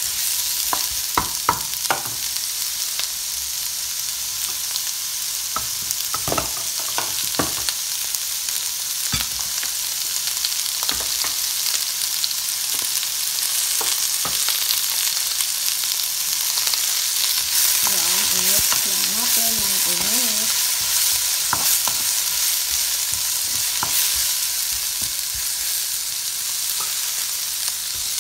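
Chopped onions, ginger and garlic sizzling steadily in hot oil in a non-stick pan, with a wooden spoon stirring them and knocking against the pan now and then.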